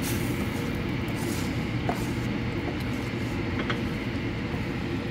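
Pot of rice in tomato broth boiling on the stove, a steady rumbling bubble, with a couple of faint taps of a wooden spatula against the pot.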